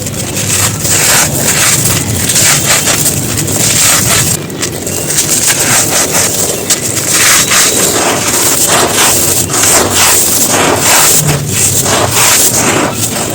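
Brittle dried chunks being crumbled, a dense, continuous run of crunching and crackling.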